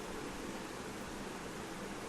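Steady background hiss with no distinct call or other event.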